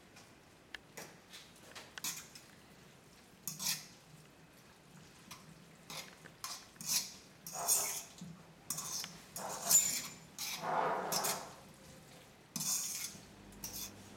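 Metal utensil scraping and clattering against a wok as egg noodles and sausage are tossed in a stir-fry, in irregular bursts.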